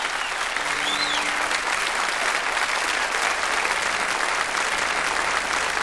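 Audience applauding steadily at the end of a song.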